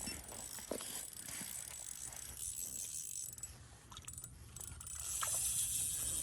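Fishing reel clicking and ratcheting while a hooked fish is fought through an ice hole, with many small ticks that grow louder near the end.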